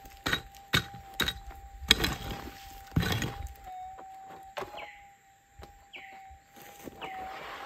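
A hand pick strikes hard red clay about five times in the first three seconds, digging out a metal-detector target, over a gold detector's steady threshold hum. The detector coil is then swept over the hole, the hum wavering slightly, with a few short bird chirps.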